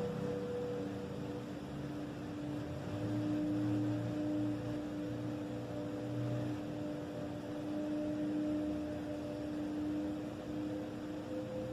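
A steady low droning hum with two held tones over a rumbling noise, swelling slightly and easing again, of the kind passed around as a mysterious sky sound.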